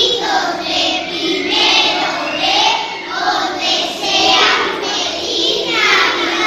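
A group of young children singing together as a small choir, in sung phrases.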